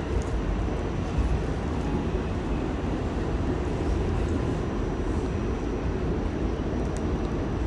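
R46 subway car running along the track, heard from inside the car: a steady rumble of wheels on rail with a faint high whine.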